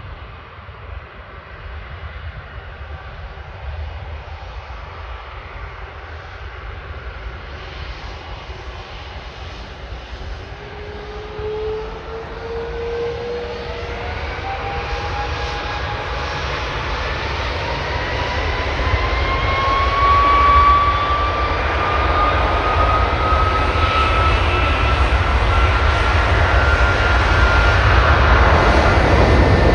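Airbus A330's Rolls-Royce Trent turbofans spooling up to takeoff power: a low rumble under a whine that climbs steadily in pitch from about a third of the way in, growing much louder towards the end.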